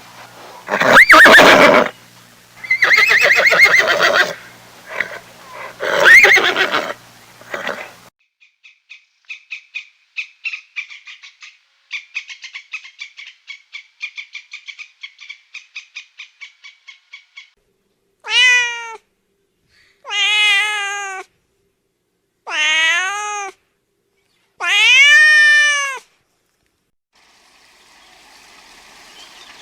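A string of animal calls: loud, rough calls for the first eight seconds, then a fast run of short high chirps, then a cat meowing four times, each meow rising and falling in pitch.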